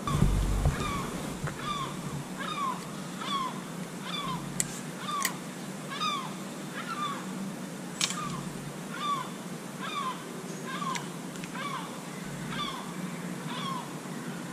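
A bird calling over and over at an even pace, about three short downward-slurred calls every two seconds. A few sharp clicks are heard in the middle, and there is a dull thump at the very start.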